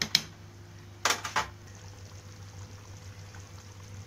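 Stingray fish curry bubbling in a kadai as it comes to the boil, over a low steady hum. There are a few sharp knocks at the start and a louder cluster about a second in.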